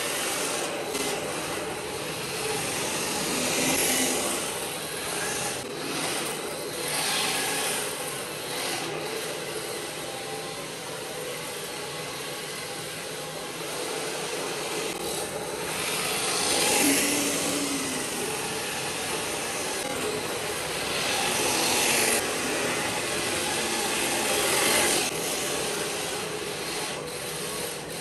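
Radio-controlled drift cars sliding around the track, their hard drift tyres scrubbing on the surface. The noise swells and fades several times as the cars come close and move away.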